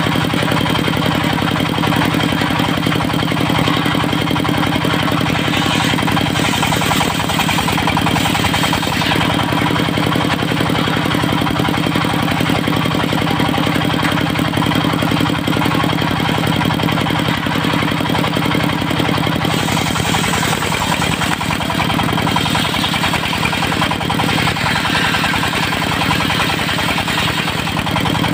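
Diesel engine running steadily, driving a circular saw that is ripping teak. A higher, rasping cutting noise swells briefly about a quarter of the way in and again through the last third.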